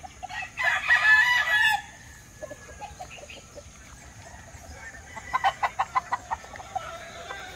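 Caged gamecock roosters: one crows loudly, about a second long, starting just under a second in. Later a run of quick clucking calls follows.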